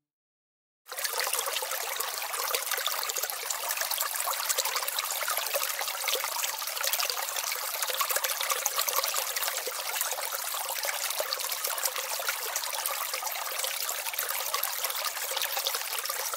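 Water trickling and running steadily, starting abruptly about a second in.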